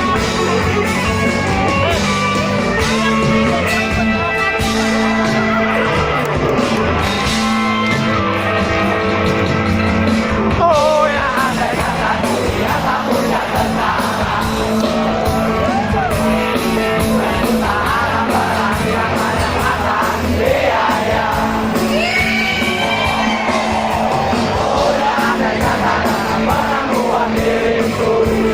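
Live rock band performance: an instrumental passage of guitars and bass, then from about ten seconds in a voice singing over the band, echoing in a large hall.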